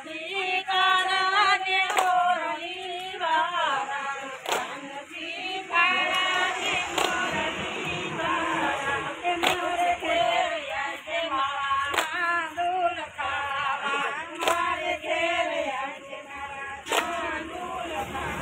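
A group of women singing a Gujarati garba song together, clapping in time about every two and a half seconds.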